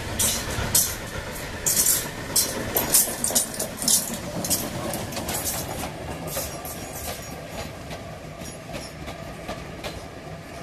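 Lambton, Hetton & Joicey Collieries No. 29, an 0-6-2 tank steam locomotive, passes close by. Through the first half there is a run of sharp, uneven exhaust beats, then its coaches roll past with their wheels clicking over the rail joints, and the sound slowly fades.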